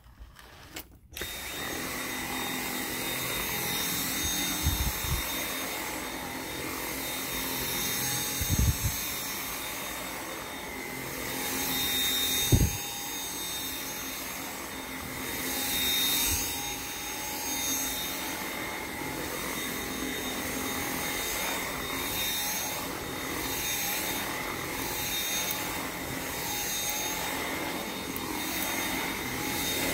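Dyson V7 Motorhead cordless stick vacuum switching on about a second in, then running steadily with a high motor whine that swells and fades every few seconds. A few dull knocks come through, the loudest about twelve seconds in.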